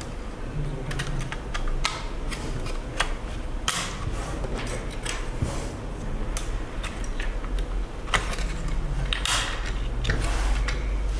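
Irregular small clicks, taps and short scrapes of hard plastic and metal parts being handled while a Minisforum UM780 XTX mini PC is opened and fitted with a drive or memory module, over a steady low hum.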